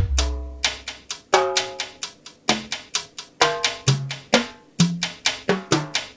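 E-mu Pro/Cussion drum module playing a preset pattern of drum and percussion hits, about four a second, with many hits ringing at a different pitch each time. A deep low tone from the previous preset dies away in the first half second.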